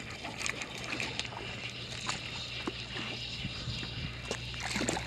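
Quantum Snapshot spinning reel being cranked while a hooked small largemouth bass splashes at the surface as it is brought in, with irregular splashes and clicks and a sharper one at the very end.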